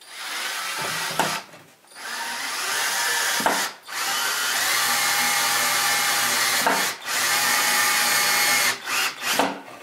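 Cordless drill-driver driving a screw into a wooden board, the motor running in several bursts of one to three seconds with short pauses between them and a few brief bursts near the end.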